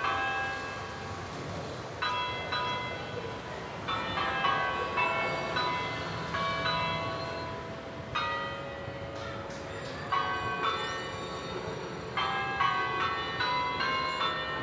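Church bells in a sanctuary's tower ringing. Several bells of different pitches are struck in quick succession in repeated clusters about every two seconds, each cluster ringing on and fading before the next.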